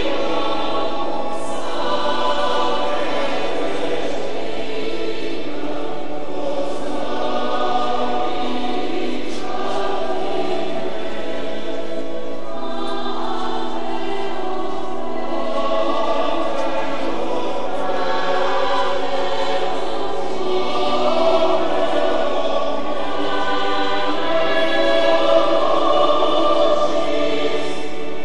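A large crowd of pilgrims singing a hymn together in sustained notes, with no pauses.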